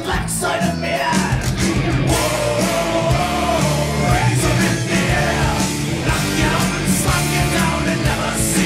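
Rock-style music with a steady beat and a held melody line.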